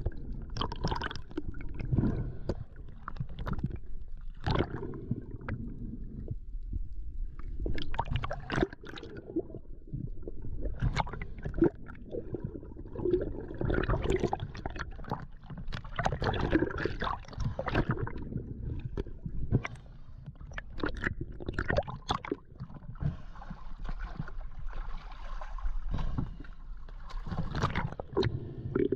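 Underwater sound at a diver's camera: water gurgling and rushing past the housing as the freediver swims, with bubbles and scattered sharp knocks and clicks. Near the end, splashing and bubbles as the diver's gloved hand reaches the boat's hull.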